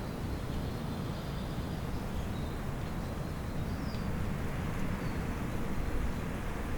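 Spring outdoor ambience: a steady low rumble with faint, thin high bird calls over it, one short falling call about four seconds in.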